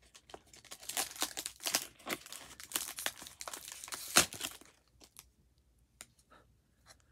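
Small cardboard box being torn open by hand, with crinkling plastic wrapping; the loudest sharp rip comes about four seconds in, after which only a few faint rustles and clicks remain.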